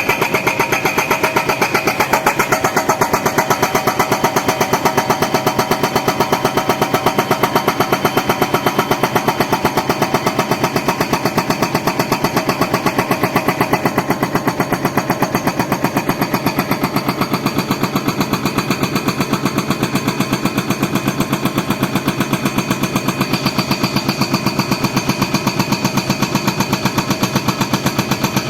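Excavator's diesel engine running steadily with a rapid, even pulsing beat.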